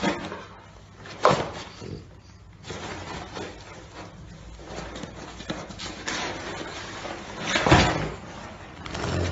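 Cardboard box knocked and scuffed about on a tiled floor as a cat paws at a French bulldog lying in it: a sharp thump about a second in and a louder one near the end, with scuffing between.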